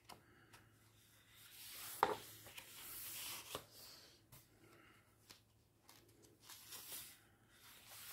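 Pages of a large paper colouring book being turned by hand: faint soft rustles and slides of paper, with a couple of light clicks about a second and a half apart.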